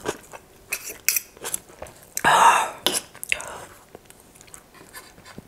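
Close-miked eating of noodles: chewing and wet mouth clicks, metal forks clicking against the plate, and one brief loud breathy mouth sound a little over two seconds in.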